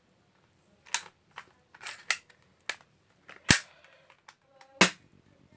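Toy BB gun clicking sharply about six times as it is worked and the trigger pulled, the last two clicks loudest; the bullet is stuck in the barrel and does not fire.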